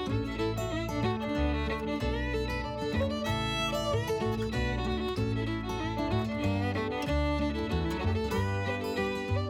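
Instrumental music with fiddle over guitar and a steady bass line.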